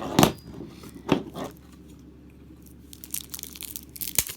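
Packaging being crinkled and torn open by hand, in short rustling bursts, with a sharp click near the end.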